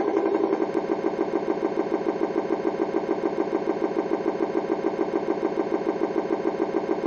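Engine idling with an even, regular pulse of several beats a second.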